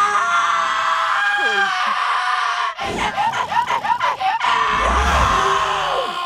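A cartoon character's long, loud scream, held for several seconds, with the pitch wavering up and down in the middle. A brief low rumble comes about five seconds in.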